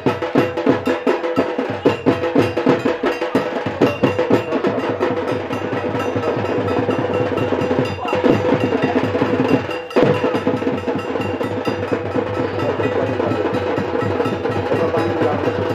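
Folk drum ensemble playing fast, steady drumming, with a held pitched tone sounding over it. The music dips briefly twice in the middle.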